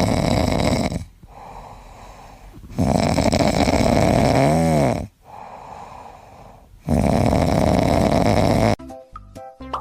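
Loud snoring: three long snores a few seconds apart, with quieter breathing between them.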